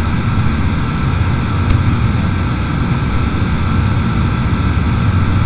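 Steady machine-like background hum and rumble, strongest in the low end, with a few faint steady high-pitched whines running through it.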